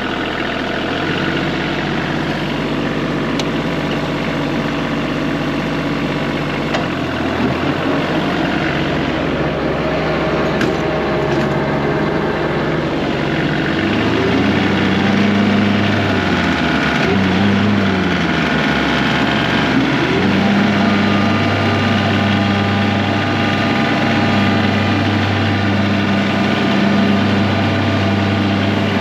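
Kioti CK2510 compact tractor's three-cylinder diesel engine running. It holds steady, then its pitch rises and falls a few times about halfway through as the engine speed changes, and settles into a steady, slightly louder run.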